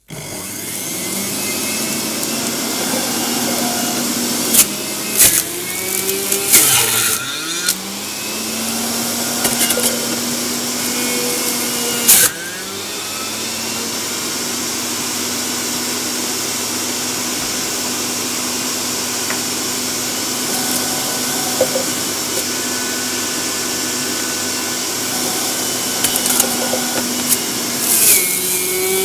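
Centrifugal electric juicer switched on, its motor running at speed with a steady whine. The motor slows briefly and recovers a few times under load as apple is pressed down onto the spinning cutter disc, with a few sharp knocks.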